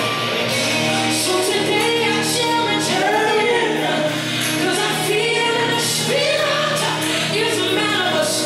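Background music: a song with sung vocals over a steady instrumental backing.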